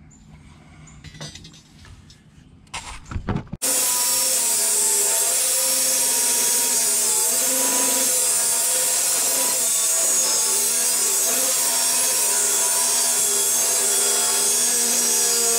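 A few light knocks from a steel coil spring being handled, then, about four seconds in, an angle grinder starts abruptly and grinds steadily against the spring's top coil to flatten it level. The grinding is a loud, continuous rasp with a steady whine in it.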